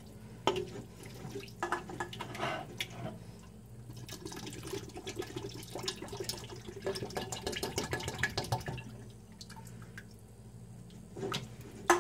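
V8 vegetable juice being poured into a pot of chili, with irregular glugs, drips and splashes. A sharp knock comes right at the end.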